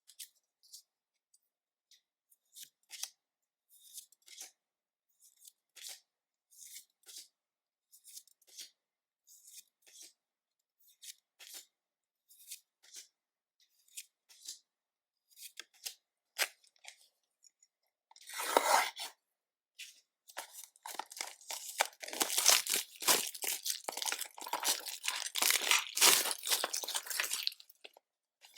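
Light ticks and taps of packs and cards being handled, about once or twice a second. Past the middle a short, sharp rip, then several seconds of loud crinkling and tearing as a foil Pokémon booster pack wrapper is torn open.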